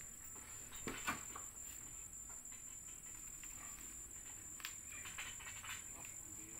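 Steady high-pitched insect chirring, with a few faint knocks about a second in and again near the five-second mark.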